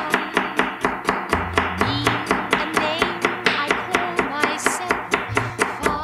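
Intro music with acoustic guitar and a quick, steady beat of about five strokes a second.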